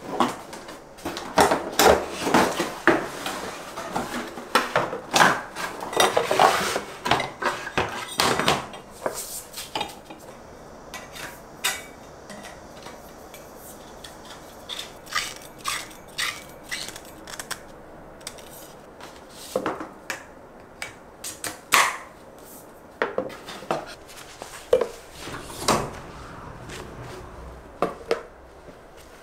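Plastic broom-and-dustpan parts and their cardboard packaging being handled: a dense run of clattering knocks and rustles for the first nine seconds or so, then scattered sharp plastic clicks and knocks.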